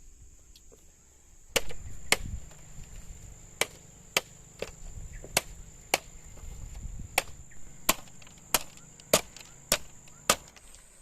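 A dozen or so sharp chopping strikes, starting about a second and a half in and coming roughly one to two a second with a short pause after the first two. A steady high insect drone runs underneath.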